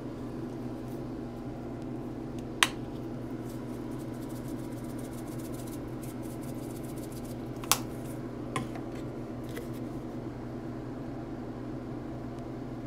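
Seasoning shakers being handled and shaken over fish fillets in a stainless steel sink. Three sharp clicks and a patter of faint ticks sound over a steady low hum.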